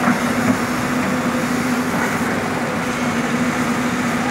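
Excavator engines running with a steady hum while digging soil.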